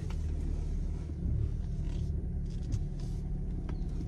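Car running, heard from inside the cabin as a steady low rumble that gets a little louder about a second in, with a few faint clicks.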